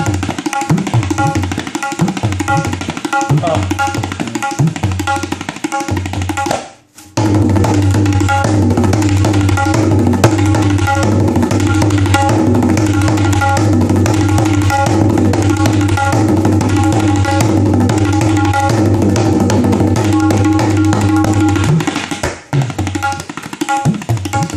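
Tabla pair (dayan and bayan) played as a train imitation. It opens with rhythmic strokes and booming bayan bass. About seven seconds in there is a brief break, then a loud, dense, continuous roll over a steady bass drone that imitates the train rumbling across an iron bridge. Near the end it eases back to lighter strokes.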